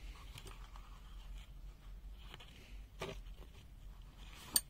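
Light rustling and a few sharp clicks from handling a Wiha screwdriver and its 1/4-inch bit set, with the loudest click near the end.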